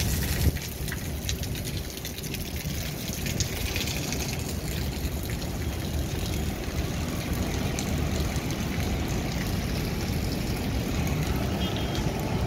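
Steady rumbling wind noise on the microphone of a high rooftop, over the faint hum of city traffic far below.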